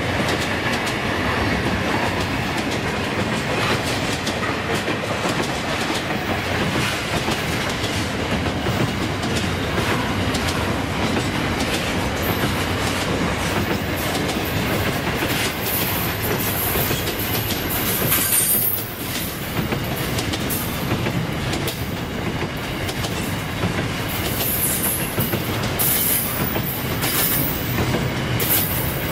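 Container wagons of a long freight train rolling past at close range: a steady rumble with wheels clicking over the rail joints. Brief high-pitched wheel squeals come in the second half.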